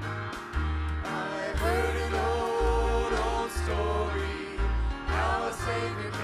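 Praise team of several voices singing a gospel hymn together into microphones, over instrumental accompaniment with a pulsing bass line and occasional cymbal-like strokes.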